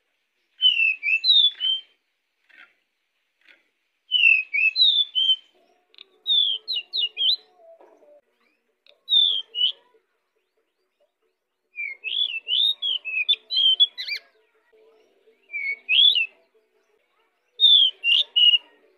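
Male pied bushchat (decu) singing vigorously: short phrases of quick, sliding whistled notes, repeated about seven times with brief pauses between.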